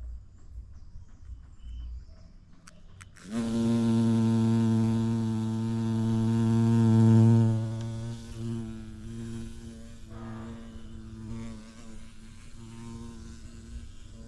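Bumblebee buzzing close by, a steady low hum that starts suddenly about three seconds in, stays loud for about four seconds, then goes on more faintly.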